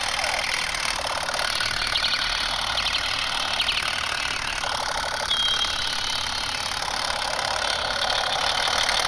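Toy Captain America pistol playing its electronic gunfire sound effect through its small speaker: a steady rapid rattle with short runs of clicks and a brief high beep a little past halfway.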